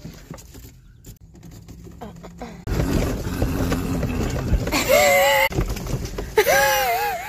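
A low rumble comes in suddenly about three seconds in and keeps going. Near the end come two high, wavering calls, the second about a second long.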